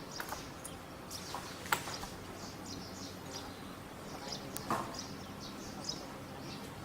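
Quiet outdoor ambience: birds chirping in short repeated calls, with a couple of sharp knocks or snaps.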